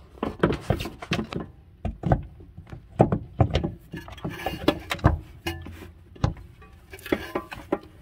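A Tesla Model S rear air suspension strut being worked up into its top mount under the car body, knocking against the metal: a series of irregular knocks and clunks.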